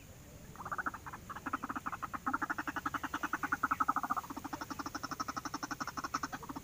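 White-breasted waterhen (ruak-ruak) calling: a fast, even run of repeated notes, roughly ten a second, starting about half a second in.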